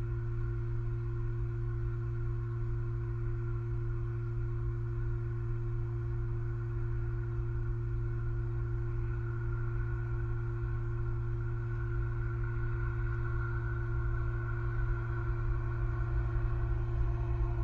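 A steady hum made of a few fixed tones, a strong low one with fainter higher ones above it, unchanging throughout and growing slightly louder near the end.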